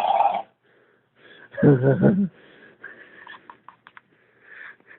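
A man belching: one short, loud, low-pitched belch about one and a half seconds in, followed by a few faint clicks.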